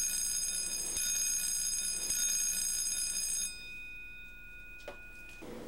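Electric alarm bell of an emergency safety shower station ringing steadily as its warning system is tested. The ringing stops about three and a half seconds in, leaving a faint ring that dies away over the next two seconds.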